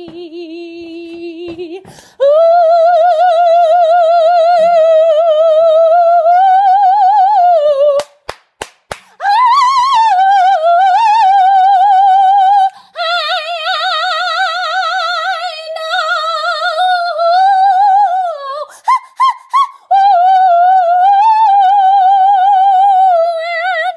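A woman singing unaccompanied and without words, in long held notes with a wide vibrato. The first note is low, and the rest are high, about an octave above it. About eight seconds in there is a short break with a few clicks.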